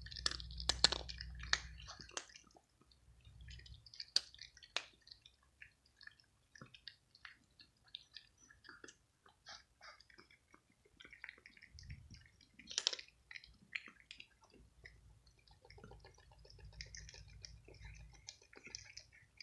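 Cats crunching dry kibble: irregular short, sharp crunches and clicks, loudest about a second in and again around thirteen seconds.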